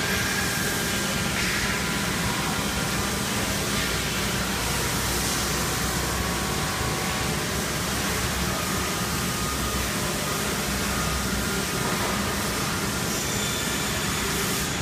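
Steady mechanical drone of running shop machinery, with a low hum underneath and no distinct cuts or impacts.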